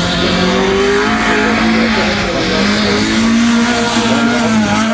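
Rally car engine running hard through a corner, its pitch rising and dropping with throttle and gear changes, over a steady hiss of tyre and track noise.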